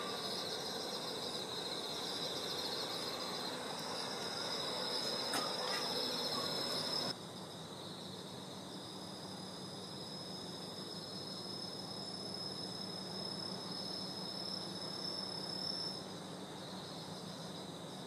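Crickets trilling in a steady, high-pitched chorus, with a faint low hum beneath. About seven seconds in the chorus drops suddenly to a quieter one, where one thin steady high note stands out.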